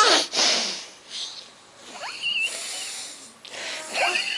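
A young girl with a congested nose from a cold sniffling and snorting in short noisy bursts, loudest in the first second. A thin high squeak comes about two seconds in, and more squeaky, wheezy nasal sounds near the end.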